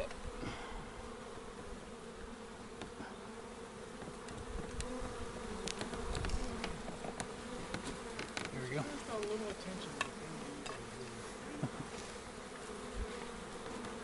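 Swarm of honeybees buzzing steadily from an opened hive, a continuous hum. Scattered sharp clicks and knocks of the wooden boards being pried apart sound over it.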